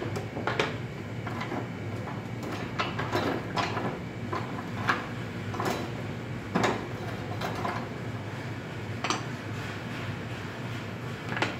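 Carved wooden Springerle cookie molds and a round cookie cutter being set down one by one on a wooden butcher-block table: scattered light clacks and knocks, over a steady low hum.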